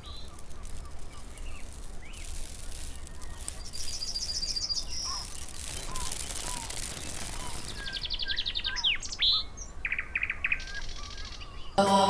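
Birds chirping, with several quick trills of rapidly repeated high notes and a few short whistled calls.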